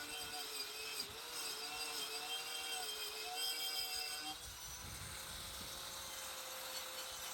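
Small high-speed power tool whirring as it strips black paint from a knife blade. Its pitch wavers up and down as it is pressed into the work, then holds steady from about four seconds in.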